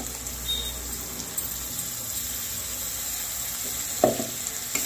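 Steady hiss of the nutrela-and-masala curry sizzling in a steel kadai while ground spinach purée is poured in.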